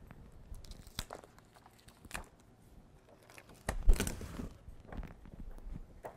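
A large paper poster being pulled down from a whiteboard and handled: crisp rustling and crinkling with a few sharp snaps, loudest in a burst of rustling about four seconds in.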